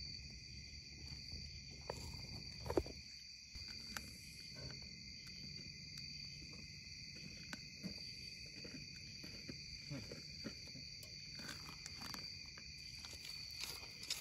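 Steady insect chorus, a high even buzzing trill, with scattered clicks and knocks close by. The loudest knock comes about three seconds in.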